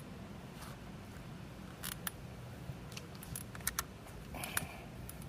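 Scattered sharp clicks and ticks of fishing tackle being handled, irregular and a few at a time, over a low steady rumble.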